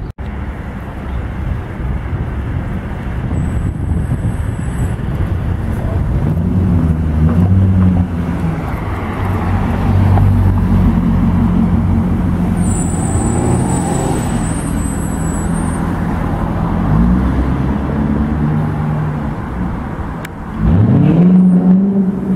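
Geiger-tuned Chevrolet Corvette C6 V8 running loud as it pulls away and accelerates, the engine note rising and falling with the throttle. A sharp rise in revs and loudness comes near the end.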